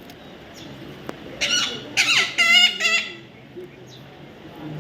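A young parrot calling: about four short calls in quick succession, one with a falling pitch, starting about a second and a half in.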